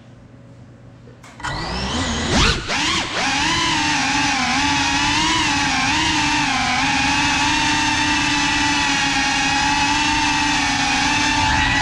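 FPV quadcopter's brushless motors spinning up with a sudden rising whine about a second in, then running at a steady buzzing whine that wavers slightly in pitch as the drone lifts off and flies.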